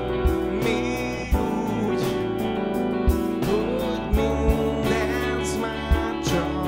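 Live band playing a slow-paced song: stage keyboard, electric guitars and drum kit, with a kick drum thumping every second or so and a sung vocal line over it.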